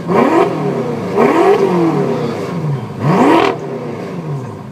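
BMW F10 M5's twin-turbo V8, fitted with an aftermarket exhaust, being revved in sharp blips about every one and a half seconds. Each time the engine note rises quickly and falls away more slowly.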